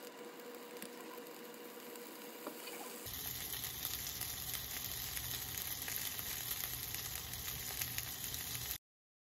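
Sausages frying in oil in a nonstick pan. A faint hiss at first, then a louder, steady sizzle from about three seconds in that cuts off abruptly near the end.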